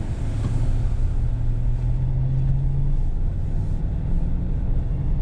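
Car engine and road rumble heard from inside the cabin as the car pulls away and speeds up; the engine's low hum rises in pitch over the first few seconds, then settles.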